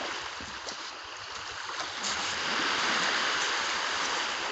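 Waves washing onto the shore, a steady rush that swells about two seconds in.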